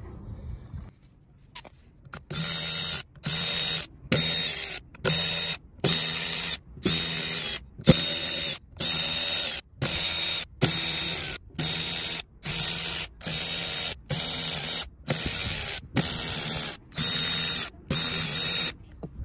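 Cordless electric ratchet whirring in about twenty short bursts, roughly one a second, as it drives the camshaft bearing-cap bolts on a Peugeot/Citroën 1.6 HDi cylinder head. A single sharp click comes about eight seconds in.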